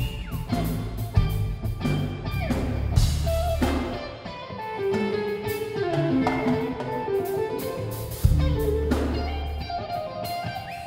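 Live rock band playing loudly: a lead electric guitar line over a drum kit and bass guitar, with some notes bent in pitch and regular drum hits. Recorded in mono on a Nokia Lumia 920 phone's microphone, which gives it a muffled tone.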